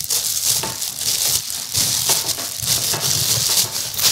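Thin plastic wrapping crinkling and rustling as it is handled and pulled off a food processor's bowl.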